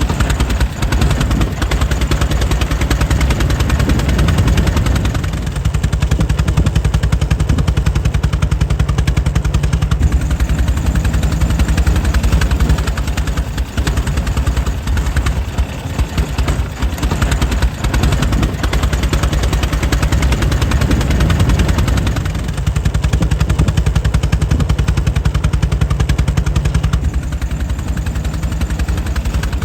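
Air-cooled 1904 Mitchell engine running steadily, a rapid, even train of firing pulses with a deep low end.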